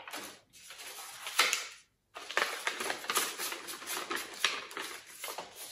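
Gold foil wrapping paper crinkling and rustling in the hands as it is folded and pressed around a glued headband, in a run of irregular crackles and small clicks.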